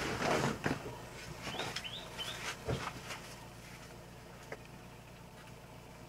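Knocks and shuffling in the first second, then a bird chirps three times, each chirp rising. About two and a half seconds in, a pickup truck's cab door thumps shut, followed later by a single small click.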